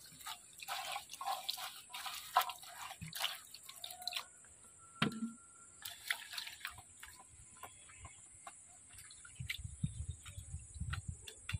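Water pouring from a plastic bottle onto leaves in a plastic basin, then splashing and dripping as hands rub and wash the leaves in the water; the splashes are dense for the first few seconds and sparser after. A steady high-pitched hiss runs underneath, with a few low bumps near the end.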